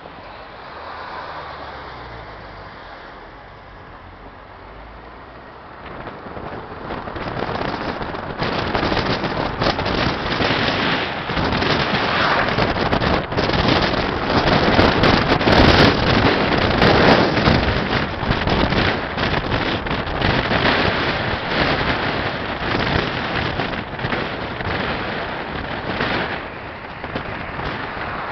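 Wind buffeting the microphone of a moving jeep, over its engine and road noise. The rumble gets much louder and gustier about six seconds in.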